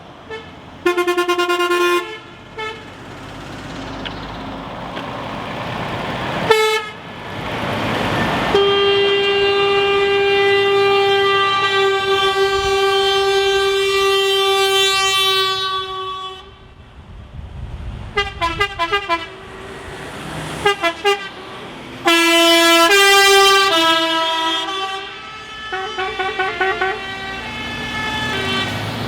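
Truck horns sounding one after another: short blasts near the start, one long blast held for about seven seconds in the middle, then bursts of quick stuttering toots and another loud blast. A brief rush of noise comes about seven seconds in.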